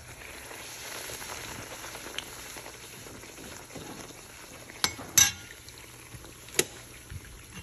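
A flour tortilla sizzling steadily in hot oil in a cast-iron pan as it puffs up, with a few sharp clinks of a steel slotted skimmer about five seconds in and again near six and a half seconds.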